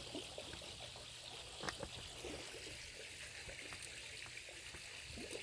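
A faint, steady trickle of running water, with a few small ticks and one sharper click under two seconds in.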